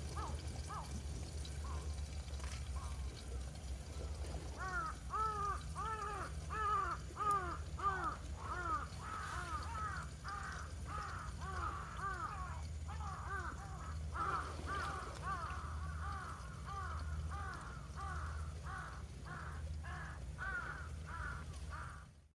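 Birds calling in a long run of rapid repeated calls, about three a second, thickening about four seconds in, over a steady low rumble.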